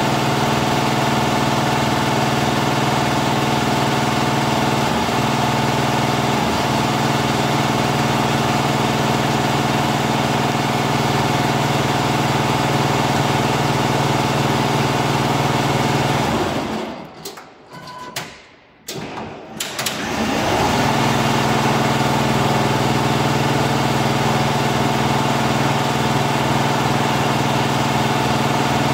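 A Richpeace 12-head flat embroidery machine running a test stitch-out, its many heads stitching together in one steady mechanical drone. About two-thirds of the way through the sound falls away to almost nothing for about three seconds, with a couple of clicks, then starts up again and runs on steadily.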